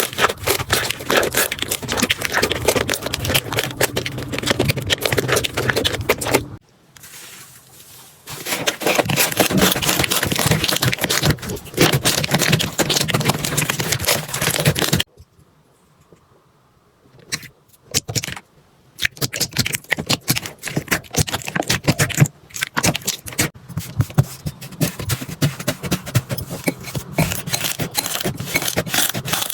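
Slime being squeezed, poked and pressed by hand, making dense sticky crackling, clicking and popping. It stops twice, briefly near 7 seconds in and for about two seconds around 15 seconds in.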